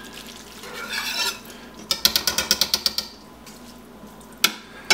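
A slotted utensil stirring a thick ground beef and pork sauce in a stainless steel pot, scraping and clinking against the metal. About two seconds in there is a quick run of rapid ticks, and a single sharp knock comes near the end.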